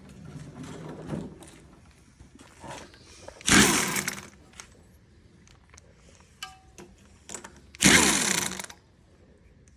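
Handheld power tool run in two short bursts, a few seconds in and again near the end, its motor pitch sliding as it spins, loosening the cylinder head bolts on a Kohler Command CV725 engine. Fainter tool noise at the start and light metal clicks come between the bursts.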